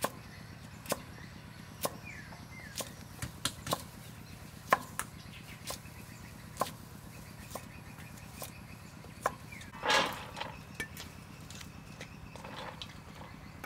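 Kitchen knife chopping carrot on a wooden chopping board: sharp, irregular knocks of the blade on the board, about one a second, with one louder, longer noise about ten seconds in.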